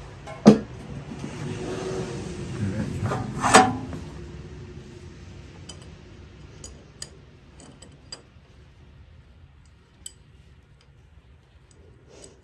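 Metal tools and parts being handled on a stuck fastener: a sharp click, a few seconds of hissing, then a loud metallic clink, followed by scattered faint ticks.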